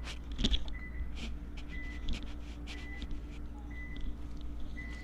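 Short, high electronic beeps repeating about once a second over a low steady hum, with scattered faint clicks.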